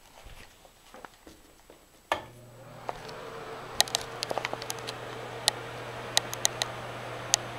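A sharp click about two seconds in, then a ceiling exhaust fan starts up: its motor hum and rushing air build within about a second and then run steadily, with scattered light ticks on top.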